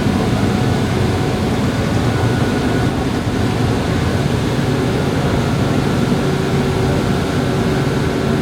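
Steady low rumble of the ferry MV Salish Heron's engines and propulsion under way, with a few faint steady tones over it.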